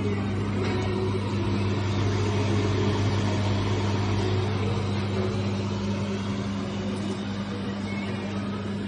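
Small CO2 laser cutting-engraving machine running: a steady low hum under an even rushing noise.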